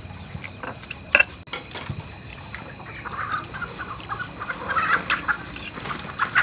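Cutlery clinking on plates during a meal, with one sharp clink about a second in, then a run of short clucking calls from about three seconds in.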